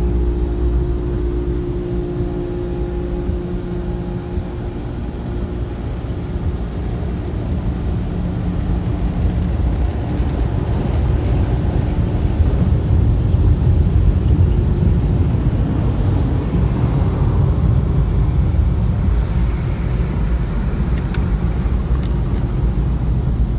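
Car cabin sound as the car drives away at low speed: engine and tyre rumble grows louder after about ten seconds. A steady hum of several tones fades out in the first eight or nine seconds, and a few light clicks come near the end.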